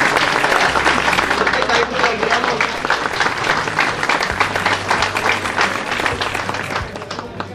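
A crowd clapping steadily, dense overlapping hand claps that ease off near the end.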